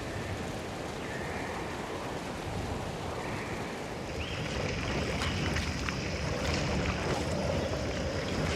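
Designed ambience sound effect: a steady rushing wash of noise, like wind or surf, with faint high tones that come and go and a few scattered clicks about halfway through.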